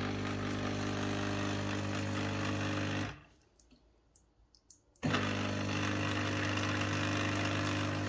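Rohnson R-989 espresso machine's pump humming steadily while brewing espresso into two cups. It stops about three seconds in, falls silent for about two seconds, then starts again and runs on.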